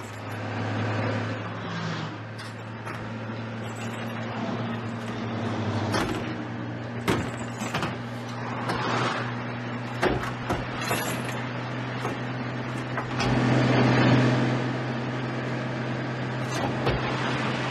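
Tipper truck's engine running steadily, with scattered knocks and clatters. The sound swells about thirteen seconds in.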